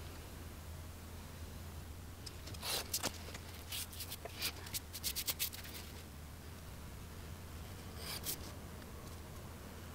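Short scratching strokes of a craft knife cutting card stock, with the card being handled: a cluster of quick strokes about two and a half to five and a half seconds in, and a couple more around eight seconds.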